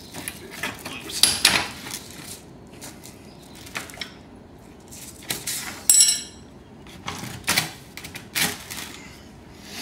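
Short knocks, scrapes and rattles as a plastic paramotor fuel tank is worked loose by hand from its aluminium frame and wire clips, with a brief squeak about six seconds in.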